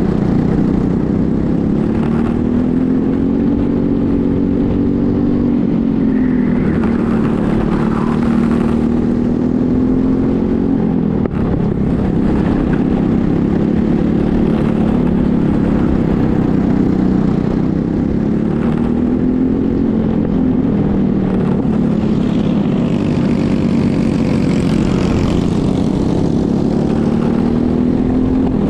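Racing go-kart's engine heard on board at full race pace, its pitch rising under acceleration and dropping back several times through the corners.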